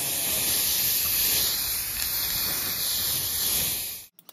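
Spinning wire brush wheel scouring rust off a starter motor's drive pinion and shaft: a loud, steady, harsh hiss that cuts off abruptly near the end.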